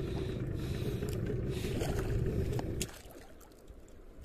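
Fishing boat's engine running with a low rumble, then cutting out suddenly about three seconds in, leaving only faint background noise.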